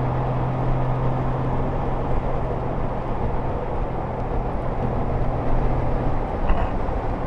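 Honda Gold Wing GL1500 flat-six engine running at a steady cruise under heavy wind and road noise, its low hum dropping away about five seconds in.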